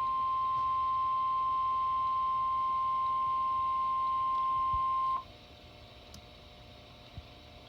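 NOAA Weather Radio's 1050 Hz warning alarm tone, sent as part of the required weekly test: one steady tone that cuts off sharply about five seconds in, leaving only a faint hum.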